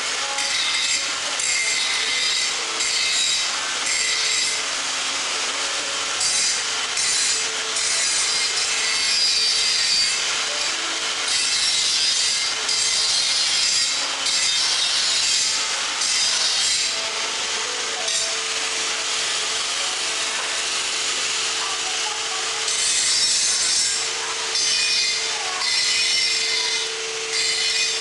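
A stainless-steel mixing machine running, with a steady hum under a continuous hissing, scraping noise that swells and fades every few seconds.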